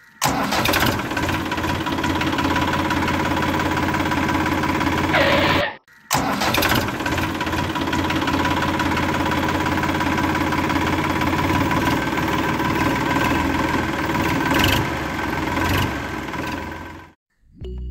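Engine running steadily at an even pitch, cutting out sharply for a moment about six seconds in and stopping shortly before the end.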